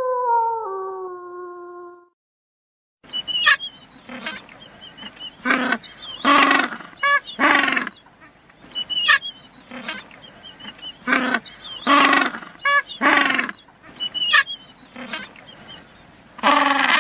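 The end of a wolf howl, one long pitched call that falls in pitch and fades out. After a second of silence, another animal's repeated calls: short high notes alternating with longer, lower calls, about one a second.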